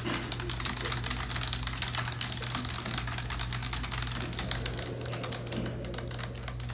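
Fast, continuous typing on a computer keyboard, keystrokes clattering in quick succession over a steady low hum.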